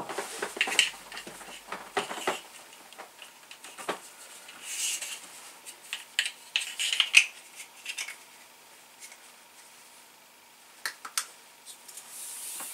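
Irregular small clicks, taps and brief rustles of hands fitting a plug onto an electric cable, handling the small plastic and metal plug parts.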